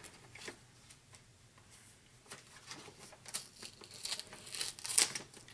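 Sheets of paper and thin clear plastic being handled and pressed down by hand: a spell of light rustles and small clicks, loudest near the end.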